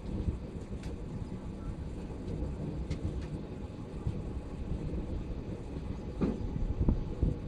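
Passenger train running along the track: a steady low rumble of wheels on rails with a few faint clicks, growing louder near the end.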